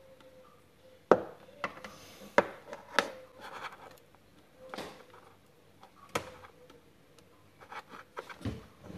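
Sharp knocks and clicks of hands handling a cable against wood and plastic while tidying a desk, several in quick succession in the first few seconds and more scattered later, over a faint steady hum.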